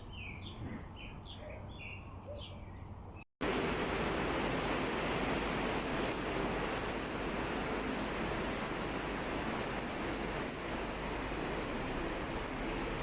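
Several birds chirping for about three seconds. After an abrupt cut, a steady, louder rushing noise of sea surf takes over.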